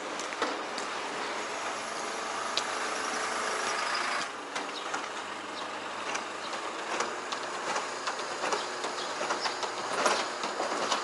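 Ladder truck running: a steady mechanical noise with irregular clicking and rattling throughout.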